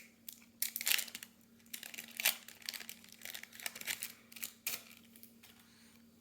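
Trading cards being handled and sorted, giving scattered crinkling and rustling over a faint steady hum.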